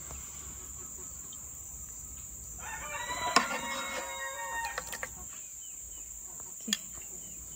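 A rooster crows once, a long call of about two seconds starting some two and a half seconds in. A metal ladle clicks sharply against the pan and bowl a couple of times while the dessert is served.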